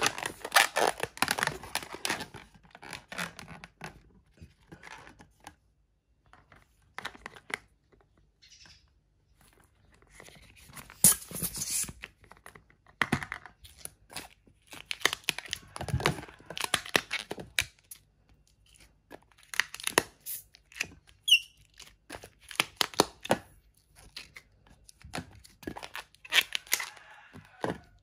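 Latex twisting balloons rubbing and squeaking as they are handled and twisted, in irregular bursts with short pauses between them. There is one short rising squeak about three-quarters of the way through.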